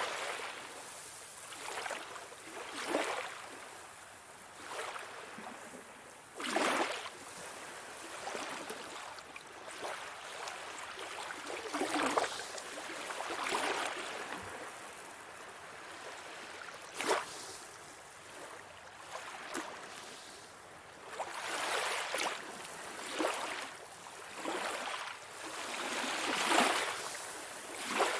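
Sea water washing and splashing in irregular surges every few seconds, with sharper splashes now and then and no deep boom of breaking surf.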